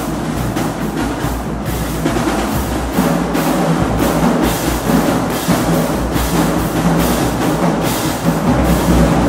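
Marching band drumline playing a percussion feature: snare, tenor and bass drums with hand-held crash cymbals.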